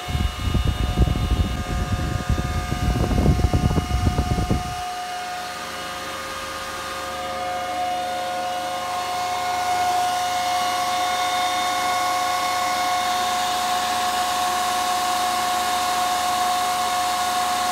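Antminer S9 Bitcoin miner's cooling fans running at full speed: a steady rushing whine with several held tones. For the first five seconds or so the fan blast buffets the microphone in a loud, uneven low rumble that then stops, leaving the plain fan whine, a little louder about ten seconds in.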